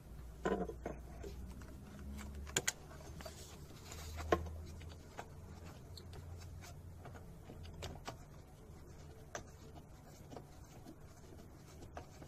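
Gloved hands handling the hoses, clamps and plastic connectors around an EGR valve: scattered light clicks, taps and rustles, with a pair of sharp clicks about two and a half seconds in and a louder knock a little after four seconds.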